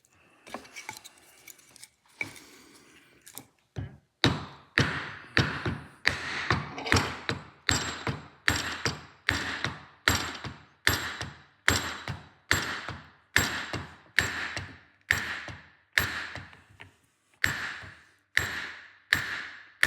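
Repeated hammer blows driving a new slotted ABS reluctor ring onto an MG ZT260 rear drive shaft, a little under two strikes a second, each with a short ring, after a few seconds of lighter handling knocks and with one brief pause near the end.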